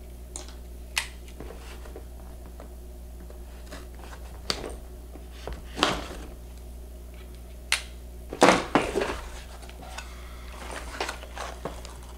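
Cardboard mailer box being opened and handled: scattered crinkles and taps, loudest in a cluster about eight to nine seconds in, over a steady low hum.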